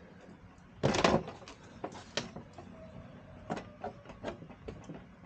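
Hands working the plastic fender trim and light connectors of a Jeep, trying to free a pull-tab clip tucked up under the fender. A loud scraping rustle comes about a second in, then scattered plastic clicks and knocks.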